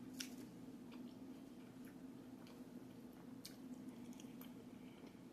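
Quiet close-up chewing of a crunchy taco shell, with a few scattered, sharp crisp crunches over a low steady hum.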